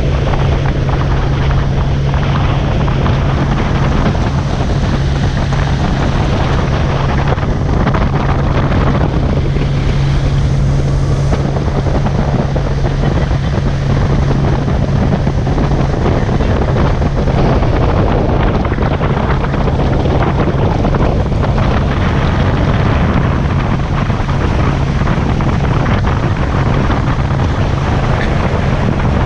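Outboard motor of a small open boat running steadily under way, a constant low drone, with wind buffeting the microphone.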